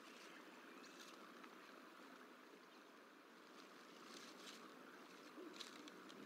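Near silence: faint steady outdoor hiss from the nest-cam microphone, with a few faint crackles of nest sticks as a bald eagle shifts and steps in the nest, mostly in the second half.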